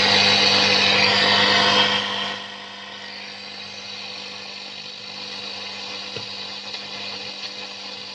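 FM radio static from a Sony CF-570S radio cassette recorder's speaker as the dial is tuned with no station coming in. A loud hiss drops to a quieter hiss about two seconds in, over a steady low hum.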